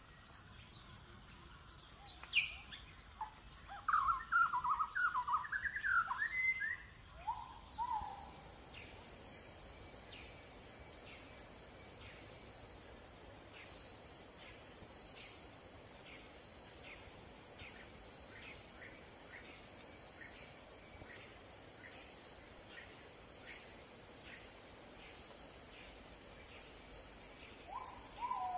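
Birds calling, a burst of quick warbling calls a couple of seconds in, over a steady high-pitched insect drone with faint regular chirps that takes over from about eight seconds; a single lower gliding call comes near the end.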